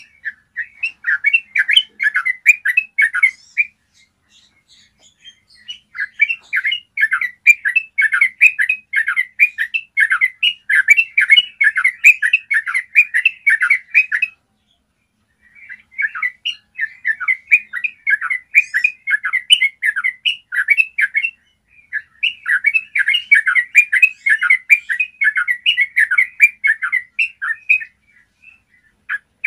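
Yellow-vented bulbul singing its long, rapid 'ropel' song: fast runs of short clear notes in bursts several seconds long, broken by brief pauses.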